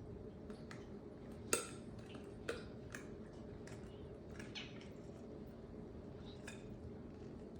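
Domestic cat making a scattered series of short, faint chirps, the sharpest about a second and a half in, over a steady low hum.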